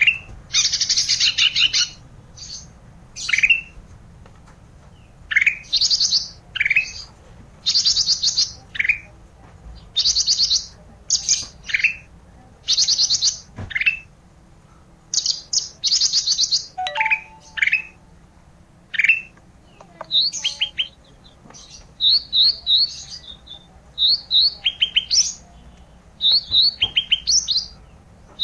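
A ranting bird (the small songbird Indonesian keepers call 'ranting') singing in full voice, gacor: short high phrases of quick rising whistles and rapid trills, repeated every second or two, the later phrases breaking into clusters of sharp chipping notes.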